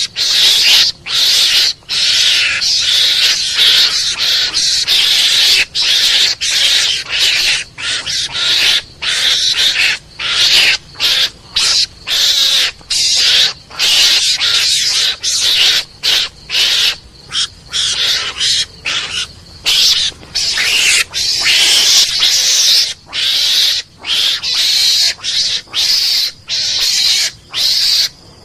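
Mongoose lure call: harsh, hissing screeches in rapid bursts, about two a second, separated by brief gaps, repeated on and on.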